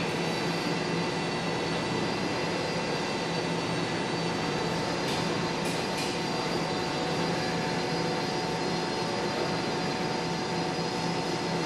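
Laser welding bench equipment running steadily: an even whir and hum with several faint steady tones, as from its cooling fans and power unit. Two short clicks about five and six seconds in.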